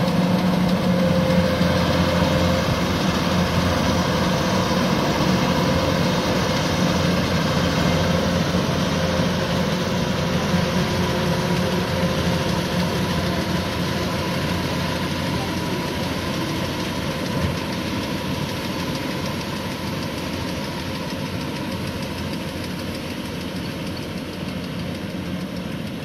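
Kubota DC-105X tracked rice combine harvester's diesel engine and threshing machinery running steadily while it harvests, with a constant low drone that grows gradually fainter as the machine moves away.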